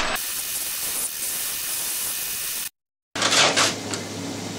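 Metal lathe running while it turns the seal face of a cast water-pump impeller: a steady hiss at first. The sound drops out completely for about half a second just past halfway, then comes back as a short rush of noise and a steady low motor hum.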